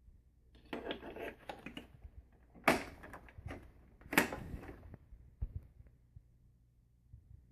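Handling noises: about a second of rustling and clattering, then two sharp clacks about a second and a half apart, followed by a few faint knocks.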